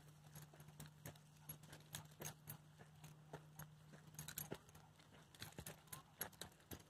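Faint, irregular footsteps of a person and a small dog climbing gravel steps edged with timber, over a faint steady low hum.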